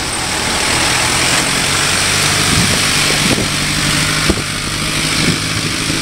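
Engines of a city bus and a small box truck running close by at an intersection: a steady low engine hum under a steady hiss, with a few short knocks through the middle.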